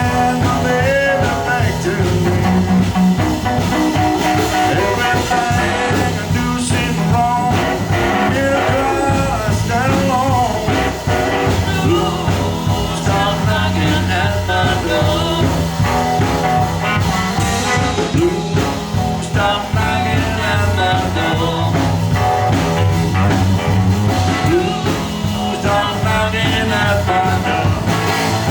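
Live blues band playing a swinging blues number, with bass and drums under a busy lead melody.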